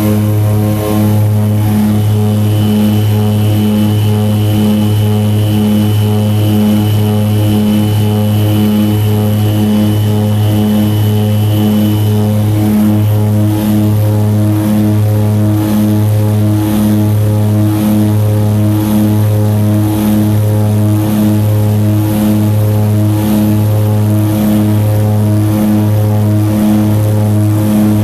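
Seaplane's propeller engines at takeoff power through the takeoff and climb, heard from inside the cabin: a steady low drone with a slow pulsing beat. A thin high whine rides over it and fades out about twelve seconds in.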